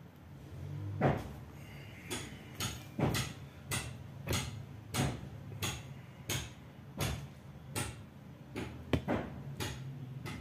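Cotton rubbed in quick, regular strokes, about one and a half a second, wiping old thermal paste off a laptop processor or its heatsink.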